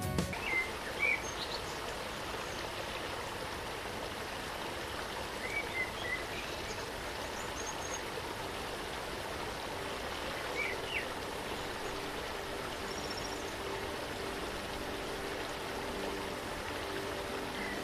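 Steady rush of flowing water from the waterfall, with a few short bird chirps: near the start, around six seconds in, and around eleven seconds in.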